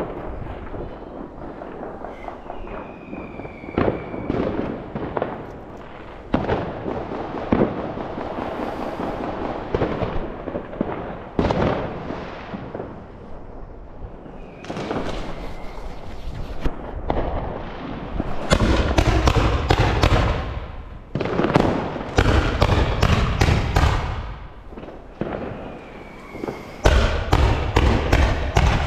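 New Year's Eve fireworks and firecrackers going off continuously: a crackling barrage of bangs that grows much denser and heavier from about two-thirds of the way in and again near the end, with a few brief whistles among them.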